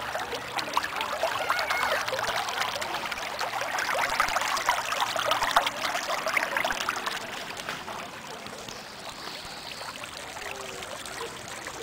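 Raw sewage welling up out of a burst sewer gallery, bubbling and splashing as it spreads across the street, louder for the first several seconds and then fainter.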